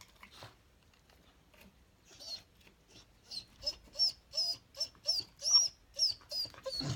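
Dog whining: a rapid run of about ten short, high whines, starting about three seconds in.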